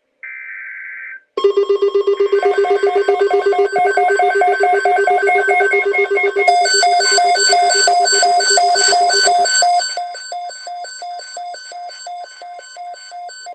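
A short burst of digital alert-data tones, then a loud electronic alert tone of several stacked pitched beeps pulsing about five or six times a second. Partway through, higher tones join; later the lowest tone drops out and the signal gets quieter.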